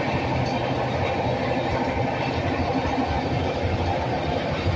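Express passenger train running along the track: a steady, low rumble of wheels and carriages.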